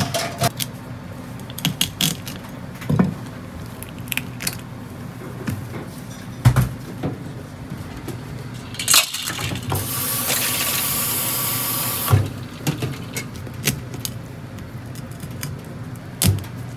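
A kitchen knife knocking and cracking through a spiny lobster's shell on a wooden cutting board, in scattered sharp clicks and thuds. About halfway through, a tap runs into the steel sink for about two seconds.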